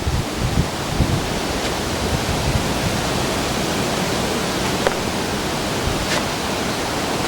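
Steady rushing of wind in a snowstorm, even and unbroken, with a few faint ticks.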